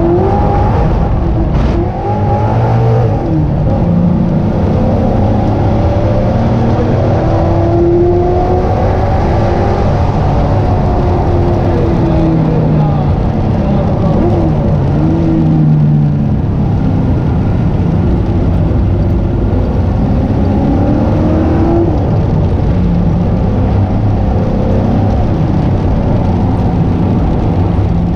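SN95 Ford Mustang engine heard from inside the cabin while it laps the track, its pitch rising and falling repeatedly as it accelerates, shifts and lifts for corners, over a steady rumble of road and tyre noise.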